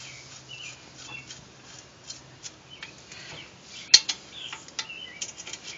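Lug nuts and a socket clicking against a steel wheel's studs as the nuts are threaded on by hand, with light scattered clicks and one sharp metal click about four seconds in as a socket is seated on a lug nut.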